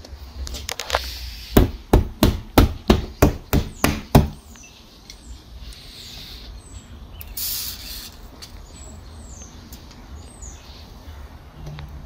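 About nine sharp knocks in quick succession, roughly three a second, on a Tesla Model 3's door around its frozen flush door handle to loosen the ice. A few seconds later a short hiss of WD-40 sprayed onto the handle to de-ice it, with faint bird chirps.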